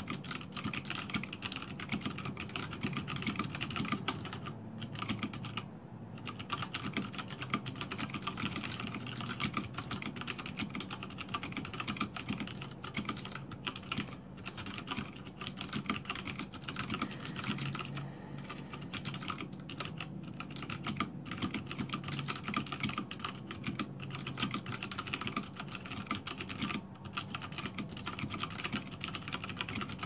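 Fast touch-typing on a WASD 87-key mechanical keyboard with Cherry MX Clear switches fitted with blue O-rings that soften the bottom-out. A dense, continuous run of keystroke clacks with a few brief pauses.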